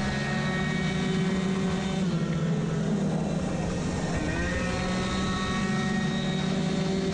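Onboard sound of a two-stroke racing moped engine held at high revs, with wind rushing over the microphone. The revs sag for a couple of seconds in the middle as the bike leans through a corner, then climb again about four seconds in.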